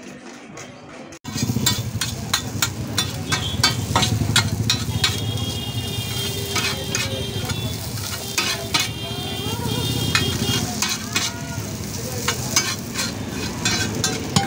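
Chow mein noodles stir-frying on a large flat metal griddle: oil sizzling while a metal spatula clatters and scrapes across the pan in quick, irregular strokes. The sound starts suddenly about a second in.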